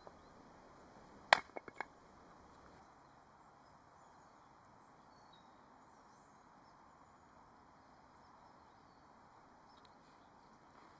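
A single sharp hatchet strike into wood on a chopping block about a second in, followed quickly by two lighter knocks. Faint steady background hiss for the rest.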